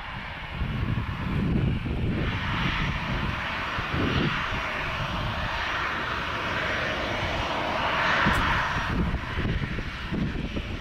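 Boeing 737-800's CFM56 turbofan engines running as the airliner taxis: a steady jet hiss over a low rumble. The hiss swells about eight seconds in, then drops off abruptly about a second later.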